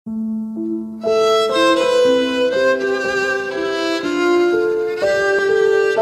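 Instrumental background music led by a violin melody over held notes, starting with one soft note and filling out about a second in.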